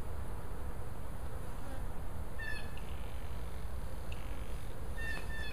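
Honey bees buzzing steadily in the air around an open hive, loose from a freshly opened package of bees.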